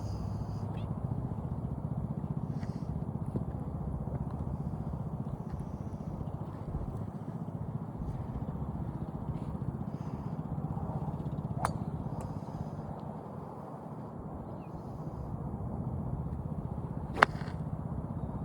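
Steady low outdoor rumble, with two sharp cracks of golf clubs striking balls at a driving range. The second crack, near the end, is the louder.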